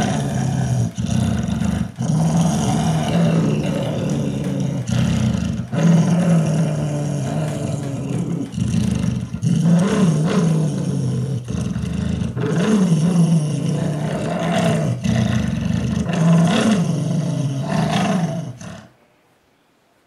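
Recorded wild animal noises played from a CD: loud, continuous deep calls that rise and fall in pitch, stopping abruptly about nineteen seconds in.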